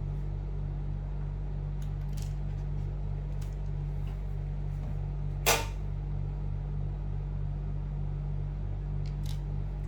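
A steady low hum throughout, with a few faint clicks and one sharp click about five and a half seconds in: a small screwdriver working at a stuck screw on a laptop's case.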